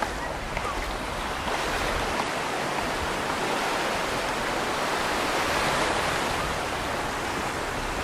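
Ocean surf washing onto the beach: a steady rush of breaking waves that swells a little past the middle.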